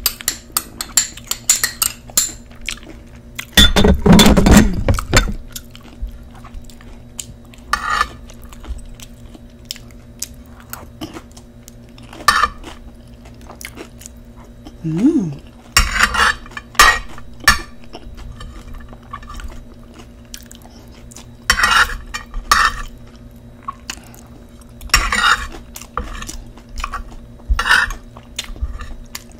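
Close-miked eating of nachos: tortilla chips crunching and chewing in irregular bouts, with clinks of dishes and cutlery between them. The loudest bout comes about four seconds in, over a faint steady hum.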